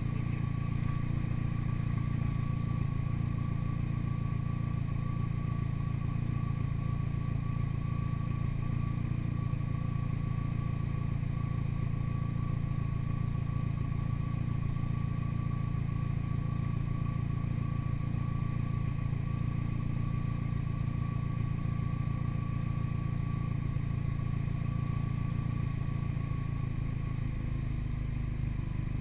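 Toyota MR2 Turbo's 3S-GTE turbocharged four-cylinder idling steadily, picked up close to the tail of the car, with a thin steady whine above the low engine note. The note shifts slightly near the end.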